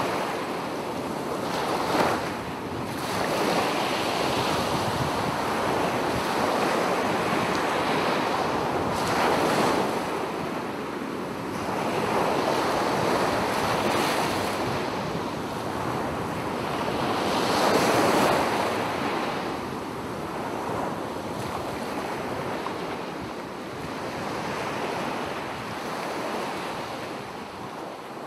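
Sea waves washing in, swelling and ebbing every few seconds, with wind noise on the microphone and a sudden sharp hit about two seconds in.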